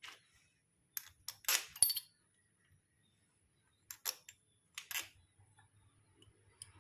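Sharp clicks and light knocks of small metal parts as a motorcycle starter motor is being closed up and reassembled, coming irregularly with the loudest cluster between one and a half and two seconds in.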